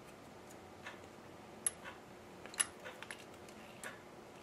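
Faint, scattered small clicks and ticks, about half a dozen, from handling wire leads and small plastic plug connectors on a model locomotive's circuit-board chassis. The two clearest come about a third and about two thirds of the way through.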